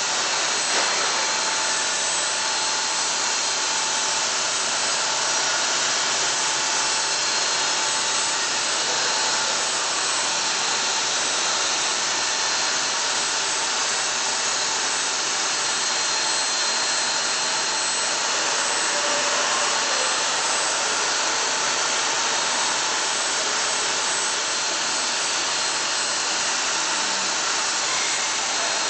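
Steady grinding and hissing of a CNC machine's diamond profile bit cutting stone, unchanging throughout.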